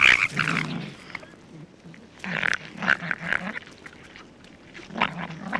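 Two South American grey foxes squabbling over food with harsh snarls and growls. The calls come in bouts: loud at the start, again about two to three seconds in, and a short outburst near the end.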